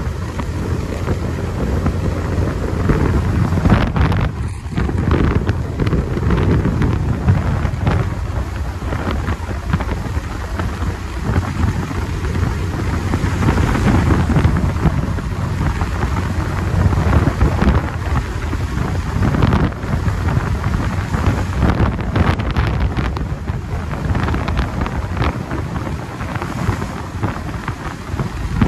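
Heavy wind rush buffeting the microphone on a Bajaj Pulsar 220 motorcycle riding at highway speed, a low rumble that swells and dips unevenly.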